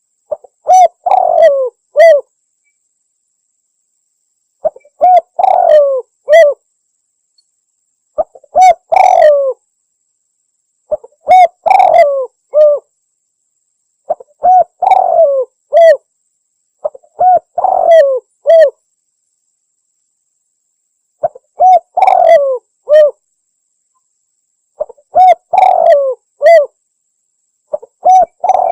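Spotted dove (tekukur) cooing: the same short phrase of several low coos repeated about every three seconds, with silence between phrases.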